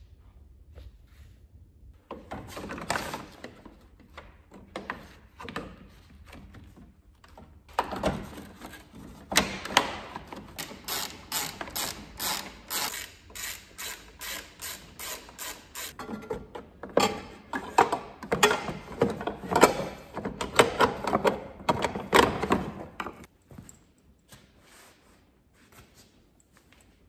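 Runs of rapid, regular mechanical clicking, a few strokes a second with short pauses between runs, as front-end brackets and the bumper carrier are fastened onto the car. The clicking stops a few seconds before the end.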